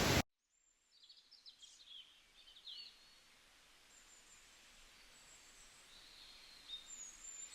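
Faint, scattered bird chirps and short whistled calls over near silence, a little busier near the end.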